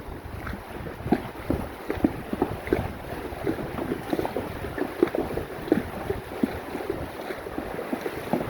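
Mules wading through a creek, their hooves splashing in the water in an uneven run of sloshes, with wind rumbling on the microphone.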